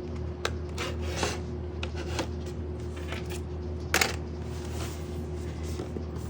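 Scattered clicks, clinks and short scrapes of hand tools and small metal hardware being handled during a PC power-supply swap, with one sharper click about four seconds in, over a steady low hum.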